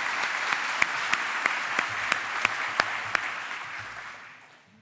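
Audience applause in a hall, with one louder clapper close by at about three claps a second; it fades out near the end.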